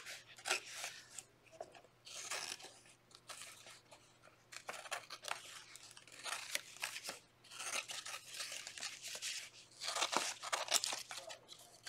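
Scissors cutting through paper striped with glued-on strips of coloured paper, snipping in short runs of cuts separated by brief pauses.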